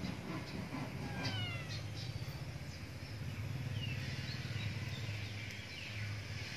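A kitten mewing: one falling cry about a second in, then a few short high mews around the middle, over a steady low hum.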